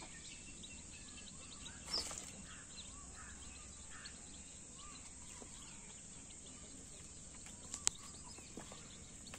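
Country chicks peeping softly as they feed around their mother hen, over a steady high insect buzz. A single sharp click near the end.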